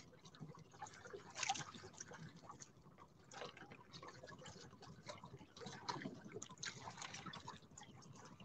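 Faint, irregular small splashes and drips of water lapping against a small wooden outrigger boat.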